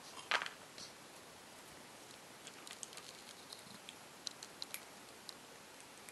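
Cat scooping dry kibble out of a steel bowl with its paw, a short rattle of pellets against the metal about a third of a second in, then crunching the kibble with scattered small sharp clicks.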